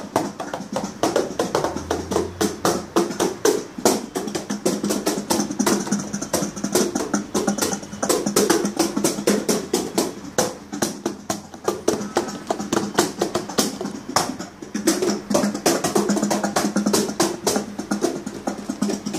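Fast hand drumming on a cajon: a quick, steady run of finger and palm slaps, several strikes a second.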